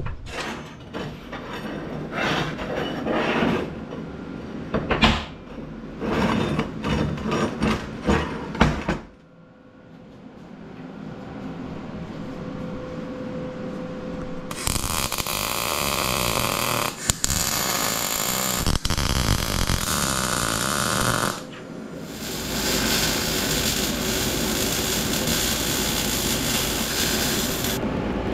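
MIG welding: a steady hiss in two runs of about six seconds each, with a short break between them. Before that, irregular bursts of power-tool noise from cutting the flat steel stock.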